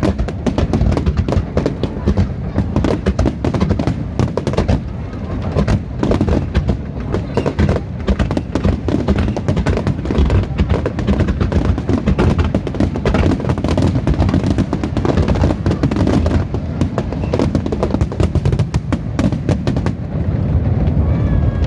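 Aerial fireworks going off in a dense, continuous barrage of bangs and crackles, many bursts a second with no let-up.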